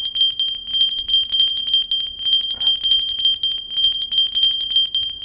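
Coin-shower sound effect: a rapid, dense stream of metallic clinks over a steady, high, bell-like ringing.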